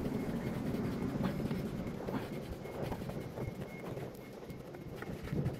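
Steady low rumble with scattered faint clicks and taps, as hand tools work loose the truck battery's terminals.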